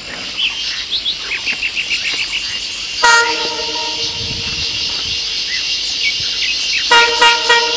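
A horn sounds one toot of under a second about three seconds in, then three short toots near the end. Insects chirr steadily throughout.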